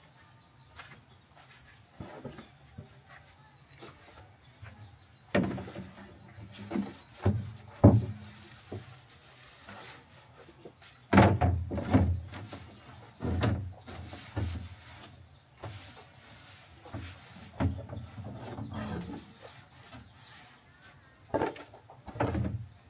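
Stiff, curved blue plastic sheeting being handled and bent over a metal frame: irregular knocks and thumps of plastic flexing and striking the frame, with rustling between them.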